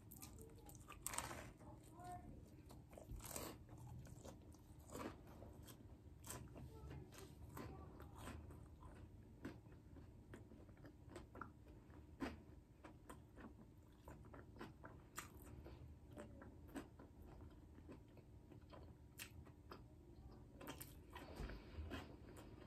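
A person quietly biting and chewing a shrimp taco close to the microphone, with faint, irregular mouth clicks and smacks.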